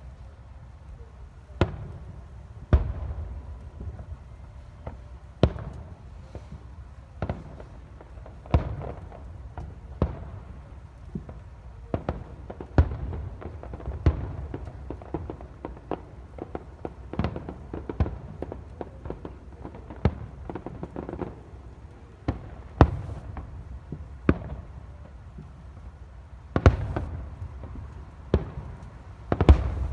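Aerial fireworks shells bursting in a continuous run of booms, roughly one a second at uneven spacing, some much louder than others, with a low rumble between the bangs.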